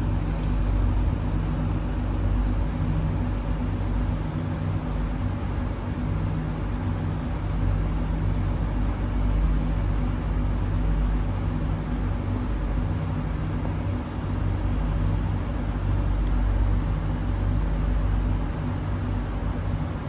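Steady hum inside an SMRT C151B train cabin standing at a platform: air-conditioning and auxiliary equipment running, a few constant low tones under an even rush of noise. A brief click about 16 seconds in.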